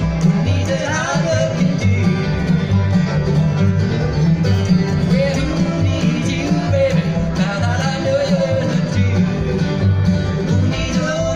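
Live bluegrass band playing: banjo, acoustic guitar, mandolin and fiddle over an upright bass marking a steady beat.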